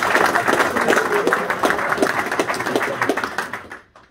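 Snooker audience applauding: a dense patter of many people clapping that cuts off abruptly near the end.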